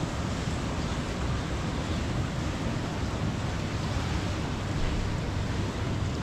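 Steady rushing noise: wind buffeting the microphone, mixed with the splashing of the pool's water jets.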